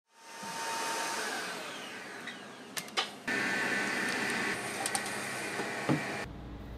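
Steady machine whirr of bakery kitchen equipment, fading in at the start. There are two sharp clicks about three seconds in, and a knock near the end as a metal tray of sponge cakes is slid onto a rack shelf.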